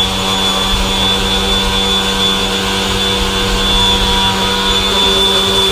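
Electric random orbital sander running steadily against the curved end of a pressure-treated board, a constant hum with a high whine over it.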